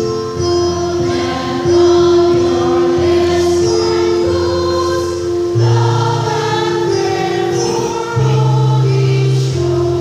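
Women's church choir singing together, with sustained low accompaniment notes held underneath that shift pitch about halfway through and again near the end.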